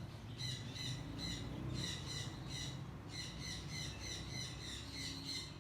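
Small caged birds chirping in a fast repeated series, about two to three short chirps a second, over a low background rumble.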